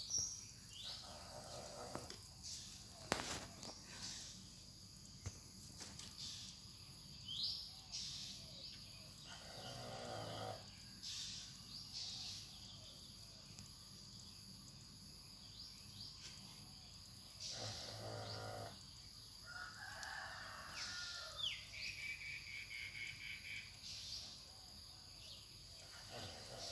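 A pit bull snoring softly, with a low, rattling snore about a second long every eight seconds or so. Birds call in the background.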